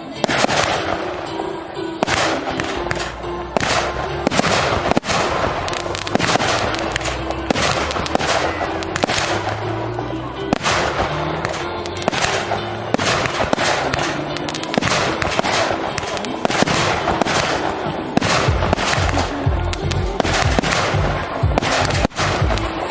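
Aerial fireworks shells launching and bursting in quick succession, a dense run of sharp bangs and crackles.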